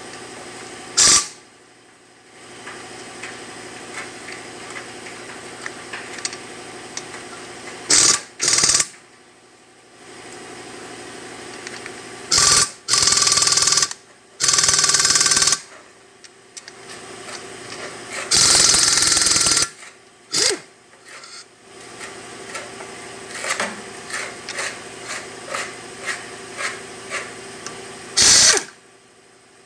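Pneumatic impact wrench hammering on the exhaust manifold bolts of an original Bombardier engine, in about seven separate bursts from a fraction of a second to about a second and a half long, with short clicks in the pauses. The bolts are the engine's original ones and stubborn, typical of bolts some 50 years old and rusted in.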